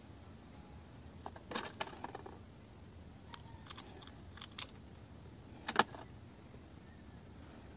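Small metal planetary-gear parts of a Bosch GSR 12-2 drill gearbox clinking as they are picked out of a plastic tub and fitted into the gear housing. There is a cluster of light clinks about a second and a half in, a few single clicks a couple of seconds later, and a sharp double click near six seconds.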